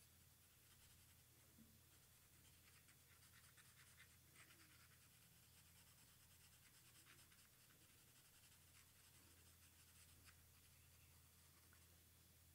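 Coloured pencil scratching faintly over paper in short, quick shading strokes, with a low steady hum underneath.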